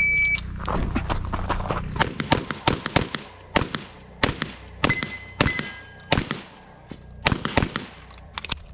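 Shot-timer start beep, then a fast string of .357 SIG pistol shots from a custom 2011, fired in quick pairs and short runs with brief pauses between.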